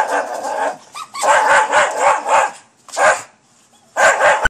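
Small dog barking in quick runs of short barks with brief pauses: a run at the start, a longer run, a single bark about three seconds in, and a final flurry near the end.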